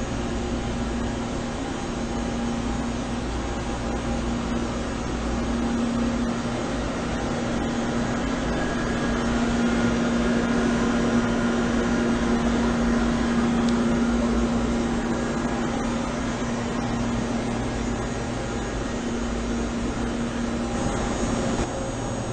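Steady hum of running machinery with a low, even whine. It swells a little in the middle and eases again near the end.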